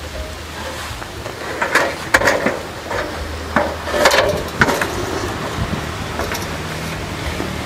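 Metal stepladder with a rusty steel frame being opened and set in place: a series of knocks and clanks as its legs and frame are handled, most of them between about 1.5 and 5 seconds in.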